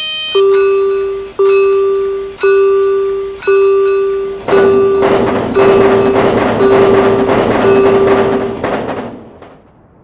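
Railroad crossing warning bell ringing about once a second, eight strokes in all, each fading before the next. From about halfway a train rushes past, its noise fading out with the bell near the end.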